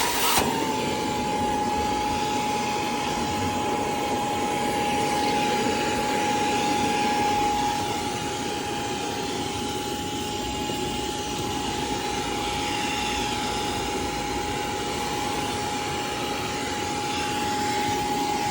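Portable Hoover spot cleaner running: the steady whine of its suction motor over a rushing hiss of air and water being drawn up from the seat fabric. The whine settles a little lower in pitch just after the start and then holds.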